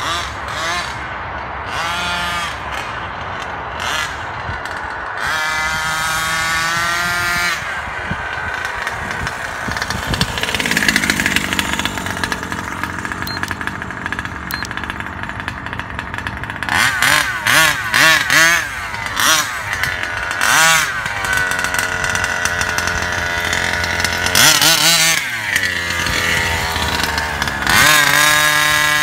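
Two-stroke petrol engine of a 1/5-scale King Motor RC car revving in repeated bursts, its pitch sweeping up and falling back. It holds a steadier drone for several seconds mid-way, then gives a quick series of sharp throttle blips near the end.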